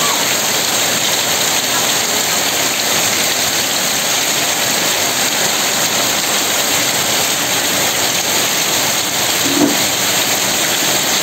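Heavy monsoon rain falling steadily, a dense, even hiss of a downpour.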